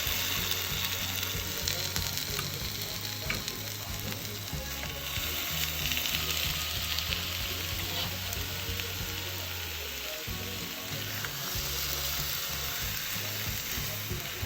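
Stingray sizzling on a hot grill, a steady crackling sizzle throughout.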